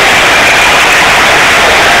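Stadium crowd cheering, a loud steady wall of noise that overloads the microphone into a hiss.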